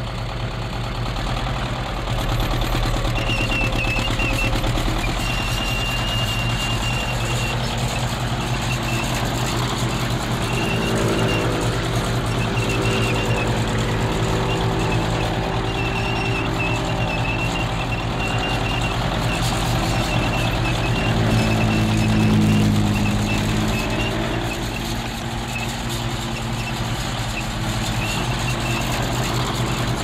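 A column of tanks with their engines running in a steady deep rumble. A thin high squeal comes and goes over the top, and the rumble swells louder and higher about three-quarters of the way through.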